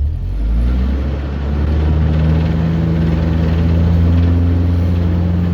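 Narrowboat engine running steadily with a low hum. It gets louder at the start and again about two seconds in, as a higher hum joins.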